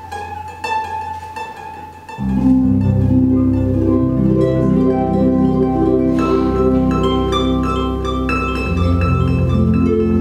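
Lyon & Healy Concert Grand pedal harp played solo through looping effects: plucked notes at first, then about two seconds in a loud layer of sustained low notes comes in suddenly and holds under the plucking.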